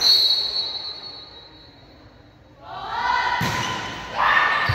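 A referee's whistle blows once, a single high shrill tone that rings on in the large gym and fades. About three seconds in, players call out and a volleyball is struck with a thump.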